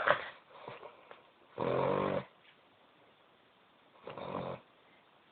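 A sleeping dog snoring. There is a short breath at the start, a strong pitched snore about one and a half seconds in, and a weaker one about four seconds in.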